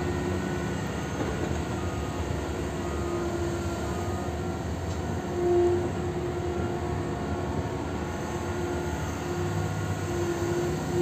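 Liebherr R 9200 mining excavator working its bucket, a steady heavy machine drone with a whine that comes and goes, swelling briefly a little past the middle.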